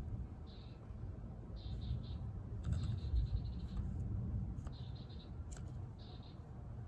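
Metal tweezers scratching and digging through loose soil in a plastic cup, in short scraping spells that come and go.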